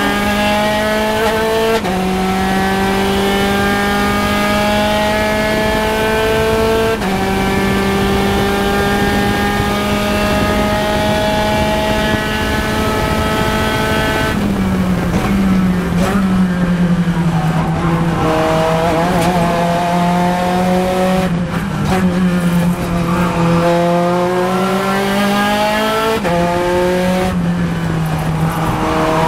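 Onboard sound of a Spec Racer Ford Gen3 race car's engine at full throttle, its note climbing steadily and stepping down at two upshifts in the first seven seconds. About halfway through it comes off the throttle for braking and downshifts, the note falling, then rising and falling again through the corner, with another drop near the end.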